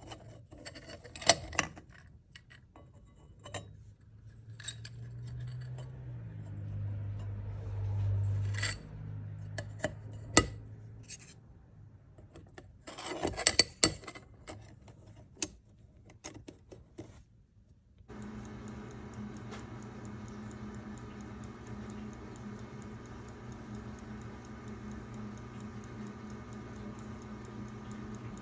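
Scattered clicks and clinks of small metal and glass instrument-cluster parts being handled, over a low hum that rises and falls. Later the handling stops and a steady hum sets in with faint, even ticking.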